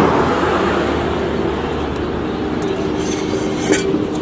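Roadside traffic noise: a passing vehicle fading away at the start, then a steady hum of traffic with a faint low tone, and one short sharp click near the end.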